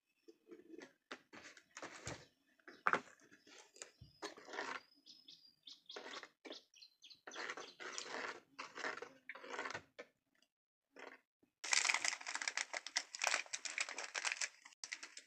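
A spoon stirring a thick milky drink in a clay pot, making short irregular scraping strokes, with a few faint bird chirps. Near the end a loud rushing hiss comes in for about three seconds.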